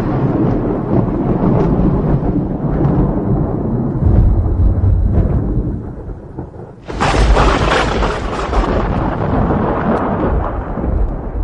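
Thunder sound effect: long rolling rumbles with a deep boom about four seconds in, a brief lull, then a sudden sharp thunderclap about seven seconds in that rumbles on and slowly fades.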